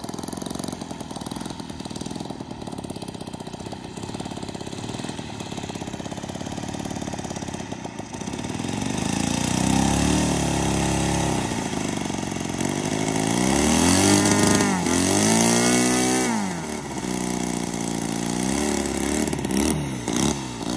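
O.S. Gemini 160 two-cylinder four-stroke model airplane engine running on the ground, idling steadily and then revved up and down several times from about eight seconds in, with the highest revs about two-thirds of the way through.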